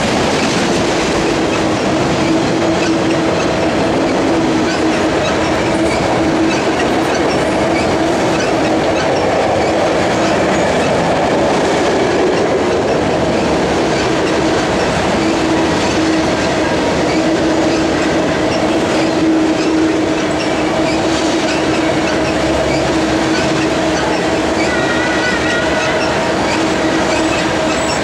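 Enclosed autorack freight cars rolling steadily past: continuous wheel-on-rail noise with a steady low tone running through it. Brief higher wheel squeals come near the end.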